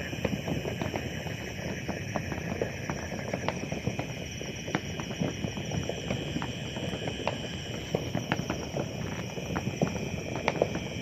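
Many fireworks going off together in a continuous crackle of small pops, with a few sharper cracks standing out and a steady high tone underneath.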